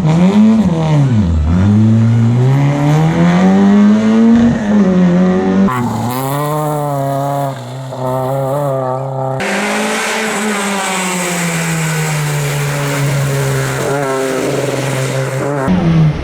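Rally car engines at hard throttle on a stage. In the first seconds the pitch drops sharply and climbs back twice through quick gear changes, then rises steadily. The sound changes abruptly three times to other passes, one of which holds a long, slowly falling engine note.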